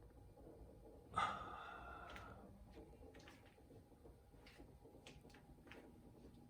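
A single sharp knock about a second in, with a ringing tone that fades over about a second, then a few faint ticks.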